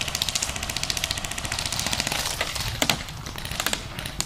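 Airsoft guns firing: a long, rapid, even string of shots on full auto for about two seconds, then scattered single shots.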